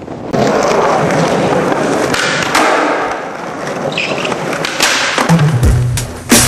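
Skateboard wheels rolling loudly on rough concrete, with a few knocks of the board. A song with a heavy bass beat comes in near the end.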